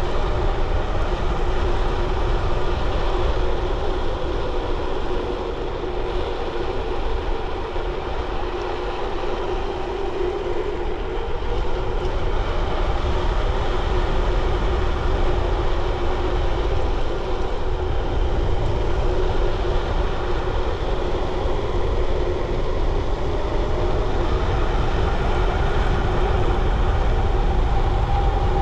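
A bicycle ridden at speed: steady wind noise on the microphone over the hum of the tyres rolling on the road.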